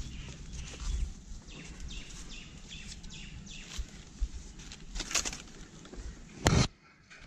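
Birds chirping in repeated short, falling calls over outdoor background noise, with one short, loud knock near the end.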